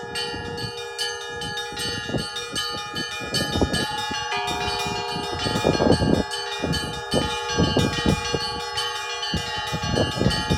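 Russian church bells of the Kizhi bell tower being rung: several bells struck in a quick, busy rhythm, their tones ringing on and overlapping. The heaviest strokes come about six seconds in and again near the end.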